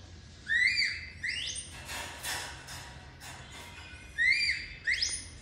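Infant macaque giving high, squeaky whistle-like cries while suckling from a bottle: two quick calls, then two more about four seconds in.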